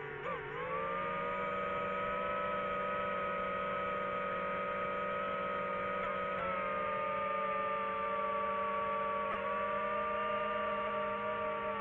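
Quadcopter drone motors and propellers whining steadily in flight. The pitch dips briefly about half a second in, then holds even.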